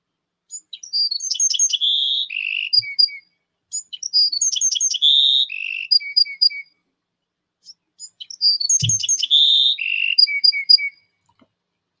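Bewick's wren singing the same song three times in a row. Each song opens with high thin notes and a fast buzzy run, drops to lower slurred notes, and ends in three short notes.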